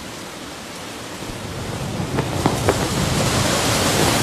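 A steady rushing noise, like surf, that swells gradually louder, with three short sharp clicks a little past halfway.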